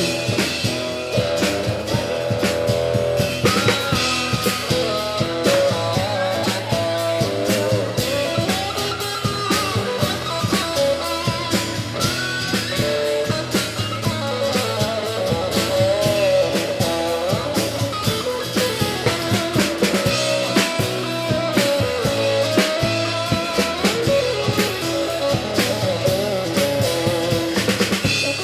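Live band playing an instrumental passage: electric guitar with bending lead notes over acoustic guitar and a drum kit.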